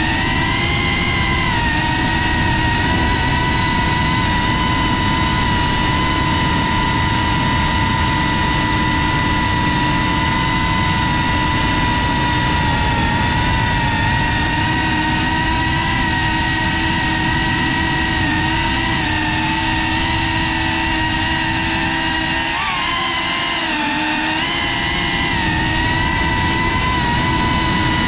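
FPV quadcopter's motors and propellers whining at a steady pitch. Late on the pitch wavers and dips briefly, then climbs slightly near the end.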